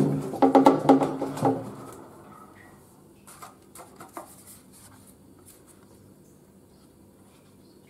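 Empty plastic water bottle clunking and knocking hollowly as it is dropped and rolled about in a hamster tank, a quick run of knocks in the first second and a half, then only faint scattered taps and scratches.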